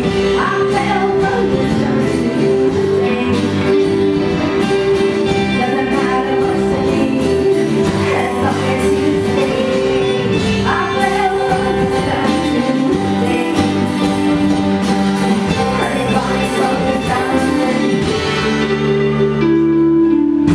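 Live band with a woman singing lead over electric and acoustic guitars. Near the end the singing stops and the guitars carry on.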